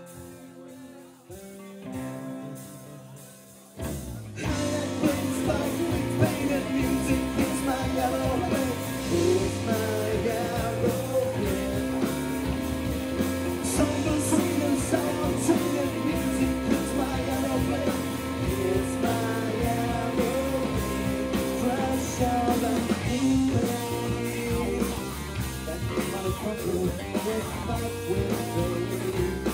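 Live rock band playing. A guitar plays alone at first, then about four seconds in the drums and the rest of the band come in loudly, and a male singer sings over them.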